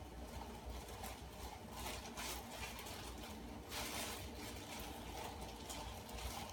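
Faint rummaging and rustling of a child handling things in a kitchen cabinet, with two brief louder scuffs about two and four seconds in, over a low steady room hum.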